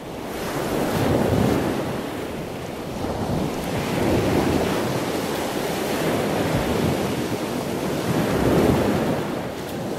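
Ocean surf: waves breaking and washing up the beach, a steady rushing that swells and eases every few seconds.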